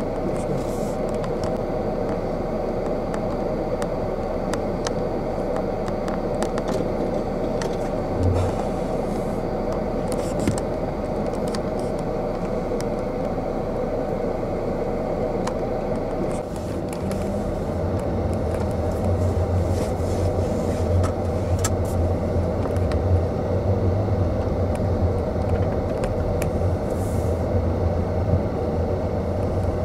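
Steady hum of a car with the camera inside it. About halfway through a deeper low rumble sets in as the car moves off and drives across a parking lot.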